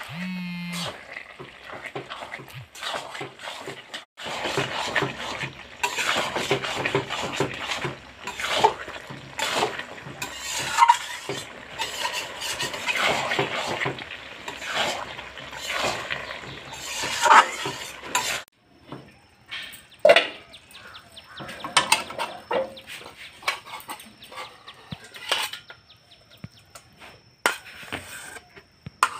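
Metal spatula scraping and clacking against a metal karai while stirring a thick, wet mix of bottle gourd greens and dried fish, with dense rapid scrapes through the first half. In the second half the strokes are sparser, separate clacks as the food is scraped out of the karai into a steel bowl.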